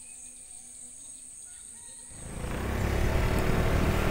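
Insects chirring steadily. About two seconds in, a loud, low, rushing noise swells up and drowns them out.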